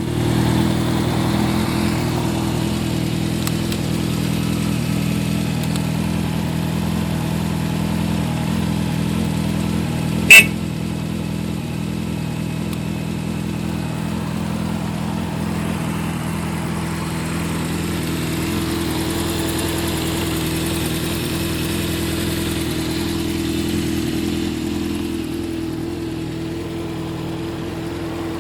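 An engine running at a steady speed, with one sharp click or knock about ten seconds in.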